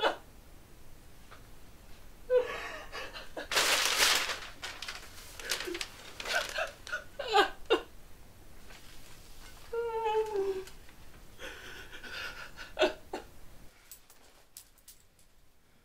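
A young man whimpering and sobbing, with sharp gasping breaths and a falling, wavering cry about two-thirds of the way through; it quiets near the end.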